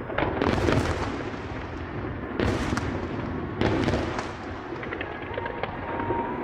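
Aerial fireworks exploding, with several loud booms (about half a second in, then twice more a couple of seconds apart) and a continuous rumble between them. Light crackling follows near the end.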